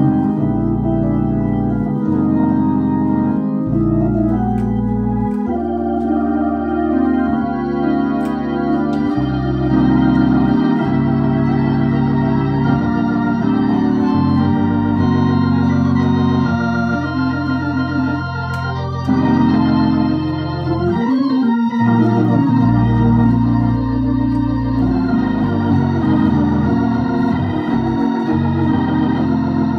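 Viscount Legend Live drawbar organ, a Hammond-style organ, played through a Tornado T115 valve-amplified rotary speaker: held chords over low notes that change every second or two.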